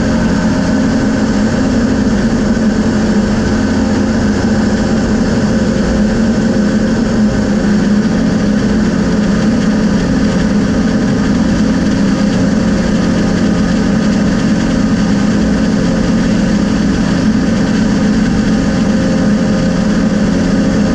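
Steady drone of a light survey aircraft's engine and propeller in level flight, with no change in pitch or level.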